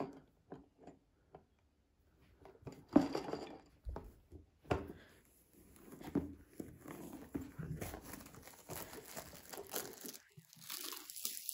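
A cardboard box handled with a few sharp knocks, then plastic shrink-wrap crinkling and tearing as it is peeled off the box, denser near the end.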